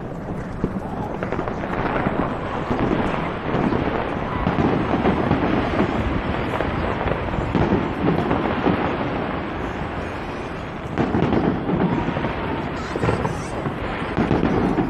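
Aerial fireworks bursting in a dense, almost continuous barrage of booms and crackles, easing briefly about ten seconds in and then building again.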